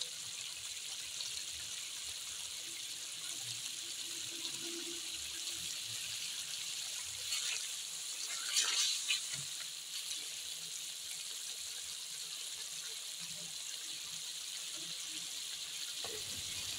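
Chicken and cauliflower curry sizzling steadily in a karahi as its gravy is fried down (bhunai), with a silicone spatula stirring through it. The sizzle swells briefly about eight to nine seconds in.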